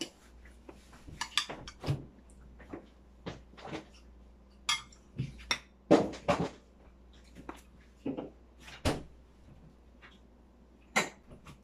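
Cutlery and dishes clinking and knocking at a dinner table as food is dished up: a string of separate short clinks, the sharpest about six seconds in.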